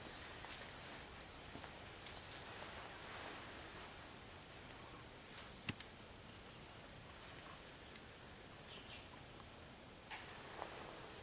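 A small bird giving short, high chip notes about every two seconds, six or so in a row, the last one doubled. A single click comes about halfway through.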